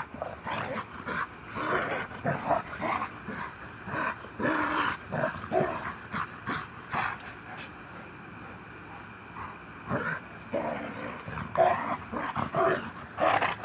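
Two dogs play-fighting, making short growls and yips in many irregular bursts.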